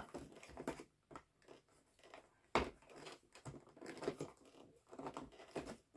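Faint crinkling, tearing and clicking of a cardboard advent calendar compartment and small cosmetic packaging being opened by hand, with a sharper click about two and a half seconds in.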